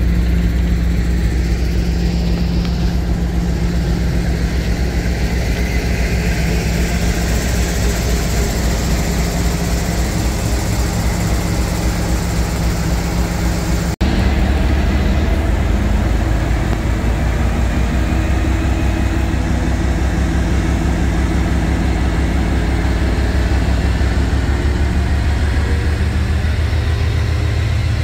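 Heavy diesel locomotive engine running with a steady low throb. There is a sharp break about halfway through, then the deep engine sound carries on.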